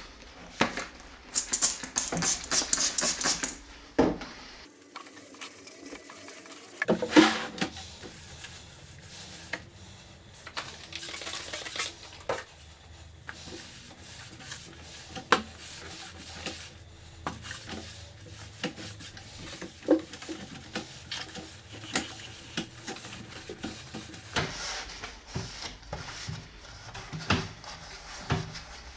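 Hand work on drawer hardware: scattered small metallic clicks, clinks and knocks with some scraping. A dense rattle comes in the first few seconds and a louder knock about seven seconds in.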